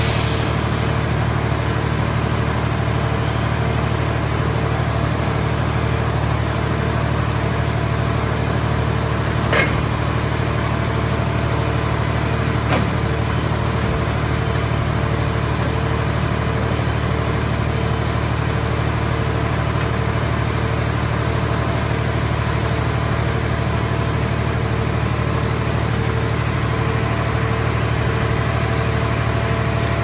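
Hydraulic power unit of a scrap car-shell baler running steadily as its grab arm works, a constant low machine hum. Two brief metallic clanks stand out, the first about ten seconds in and the second about three seconds later.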